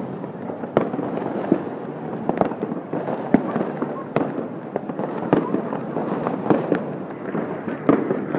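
Fireworks going off: about a dozen sharp bangs and cracks at irregular intervals, over a steady hubbub of crowd noise.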